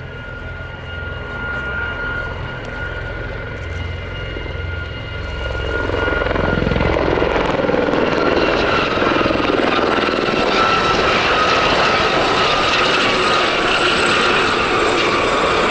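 Westland Gazelle helicopters flying a display, with a low rotor beat and a steady high whine. About six seconds in, the sound grows louder and fuller as one Gazelle passes close.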